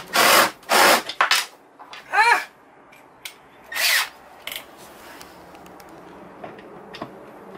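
Cordless power driver running in about five short bursts over the first four seconds, its motor spinning up and down, as it drives fine-thread bolts down into a boat seat pedestal's bolt circle. It then falls quieter.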